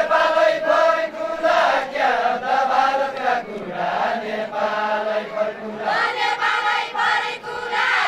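A group of men singing a Deuda folk song together, in long drawn-out phrases whose pitch bends, with short breaks between them.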